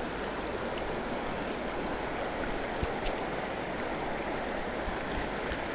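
Steady rushing of flowing river water, with a few faint clicks about three seconds in and again near the end.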